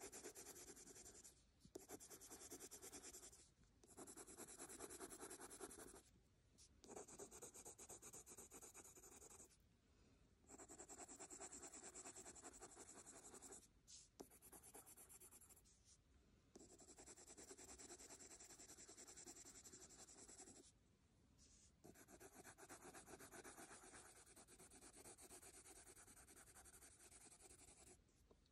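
Faint scratching of a pink Prismacolor coloured pencil rubbed back and forth on paper, blending the colour layers. It comes in spells of a few seconds with short pauses between.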